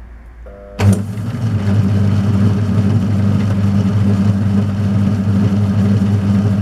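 Metal lathe switched on about a second in with a sudden click. Its motor and belt drive bring the chuck and shaft up to speed and then run with a steady low hum. This is a trial spin to check the work turns okay.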